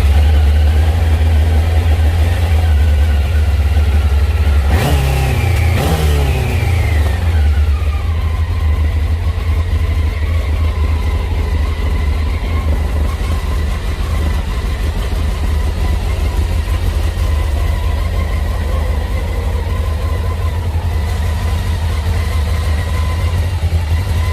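Honda CBR600F inline-four engine running just after starting, blipped twice about five seconds in with the revs sliding slowly back down, then settling to a steady idle. The carburettors are not yet set up, and the owner says it is not running right on the primary jets.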